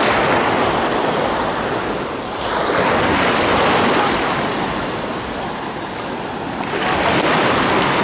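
Small sea waves washing in and breaking on a sandy shore. The surf swells three times: at the start, around three seconds in, and near the end.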